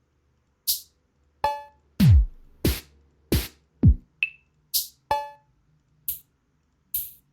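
Electronic drum samples from the Hydrogen drum machine played one after another: short bright cymbal-like hits, two deep kick drums that drop in pitch, and hits that ring with a pitched tone, about a dozen strokes in all with gaps between them.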